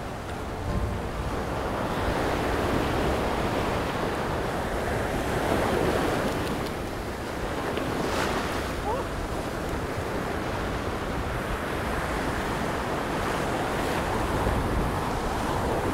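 Breaking surf washing up the beach, with wind rumbling on the microphone. A brief sharp sound cuts through about eight seconds in.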